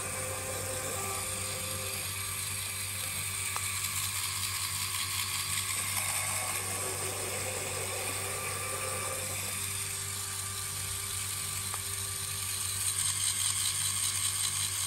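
A LEGO electric motor running and driving a LEGO Technic CVT gearbox of plastic cones and a rubber band, with a steady whir and a fast rattle of plastic gears and axles. Its note shifts a few times, and it gets louder near the end.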